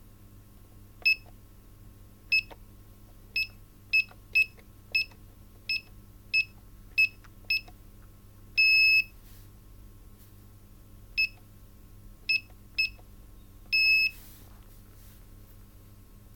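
Electronic beeps, all at one high pitch: a string of short beeps at uneven intervals, with two longer beeps, one about halfway through and one near the end, over a faint steady hum.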